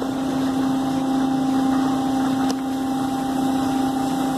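Autec Model 260 soft-touch car wash machinery running through its undercarriage wash stage: a steady hum over the hiss of water spray.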